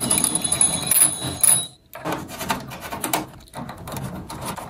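Screws being backed out of a CPU upgrade card inside a desktop computer: a steady high whine for nearly two seconds that cuts off suddenly, then a string of clicks and knocks as the screws and card are handled.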